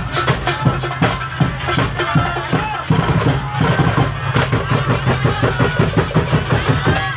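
Drum-driven festival dance music with a fast, steady beat of about four strokes a second, over the voices of a large outdoor crowd.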